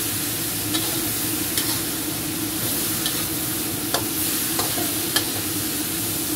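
Diced potatoes and chilies frying in a wok with a steady sizzle, stirred with a metal spatula that scrapes and clinks against the pan about half a dozen times.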